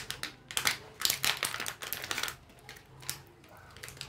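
Small plastic doll accessories being handled, with quick clicks and taps, dense in the first half and sparser after.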